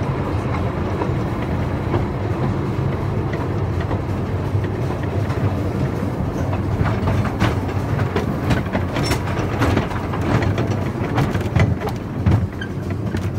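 Groudle Glen Railway narrow-gauge train carriage rolling along the track: a steady low rumble, with wheels clicking over the rail joints more and more often in the second half.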